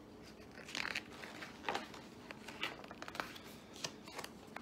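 Pages of a hardcover picture book being handled and turned: several short, faint paper rustles.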